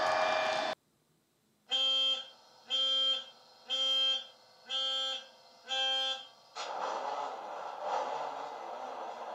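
Sampled Class 66 diesel locomotive sound from an ESU LokSound decoder, played through a small tablet speaker in an OO-gauge model. A brief noise cuts off abruptly, then come five evenly spaced electronic warning beeps about a second apart, typical of the locomotive's start-up sequence. After that the EMD two-stroke V12 diesel starts and runs with a steady low rumble.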